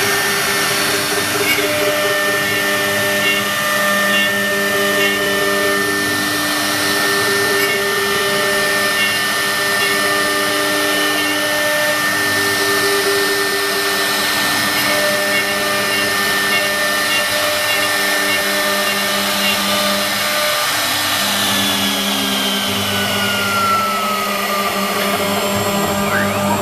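CNC router with a 6 kW HSD spindle cutting a wood panel: a steady high spindle whine over lower machine hums that come and go. Near the end the whine slides down in pitch for a few seconds.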